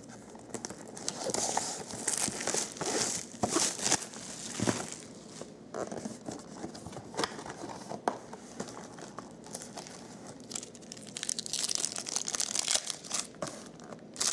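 Plastic shrink wrap crinkling and tearing as it is peeled off a cardboard trading-card box, then the box being opened and a foil card pack rustling, all in irregular crackles and rustles.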